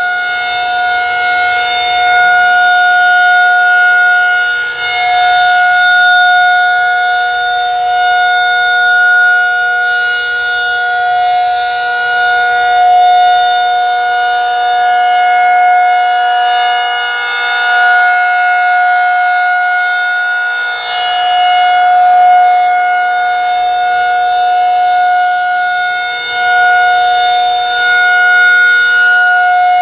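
Federal Signal 2001-SRN rotating outdoor warning siren sounding its steady alert tone of about 722 Hz. The pitch holds still while the loudness swells and fades as the slowly turning horn sweeps toward and away.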